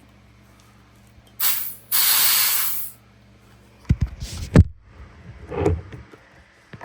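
High-pressure air hissing in two bursts while a Kral NP02 PCP air rifle is being filled, a short one and then a longer one of about a second, followed by several sharp clicks and knocks of metal parts being handled.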